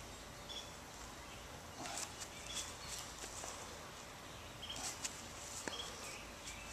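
Quiet outdoor ambience with short, high bird chirps and a few soft knocks and scuffs from footsteps on grass.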